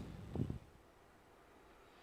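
A brief, soft low thump or handling noise about half a second in, then quiet room tone.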